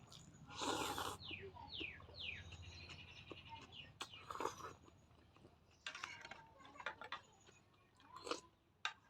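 Close-up eating sounds of Maggi noodles and egg: a loud noisy burst about a second in, then scattered mouth clicks and chewing. Short falling chirps of birds sound faintly in the background early on.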